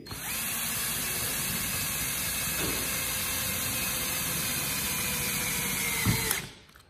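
Craftsman cordless drill running steadily under load, its motor whine held at one pitch, as it bores into the metal armrest frame. A knock comes just before it stops suddenly near the end.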